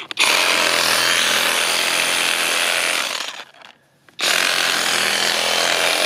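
Cordless reciprocating saw running with its blade driven into the soil, cutting out a bramble root hub. It runs for about three seconds, stops briefly, then starts again about four seconds in.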